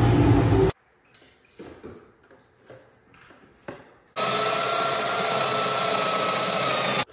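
Hammer A3-31 jointer-planer running loudly, cut off suddenly under a second in. Then light handling sounds and a single knock as a Festool guide rail is laid on ash boards. About four seconds in, a Festool Domino joiner starts and runs steadily with a steady whine for about three seconds before cutting off abruptly.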